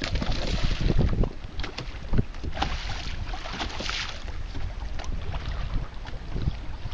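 Hooked bass thrashing and splashing at the water's surface beside a boat, in two bursts, over a steady low rumble of wind buffeting the microphone.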